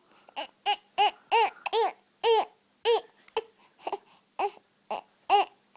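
Baby making a run of short, high-pitched vocal noises, about two a second, each rising and then falling in pitch.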